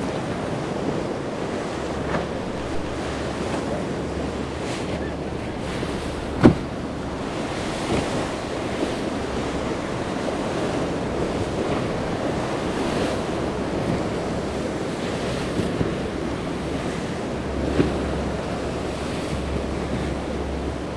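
Wind buffeting the microphone over the steady wash of surf in a rough ocean inlet, with a sharp knock about six and a half seconds in and a few fainter ones.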